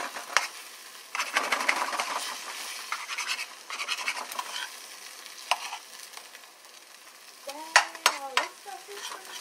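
Eggs sizzling in a nonstick frying pan as a spatula stirs and scrapes them, with a burst of sharp spatula taps against the pan near the end.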